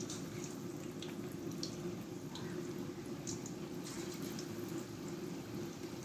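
Potato-and-onion pakoras deep-frying in hot oil: a steady sizzle and bubbling with scattered small pops and crackles.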